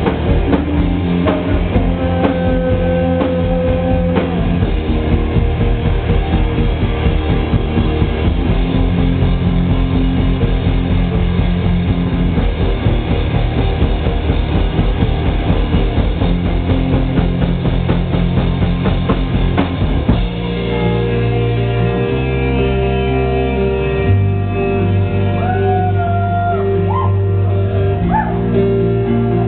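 Rock band playing with drum kit and guitars driving along. About two-thirds of the way through the drums drop out and the guitars ring on in held chords, with a few notes bending upward.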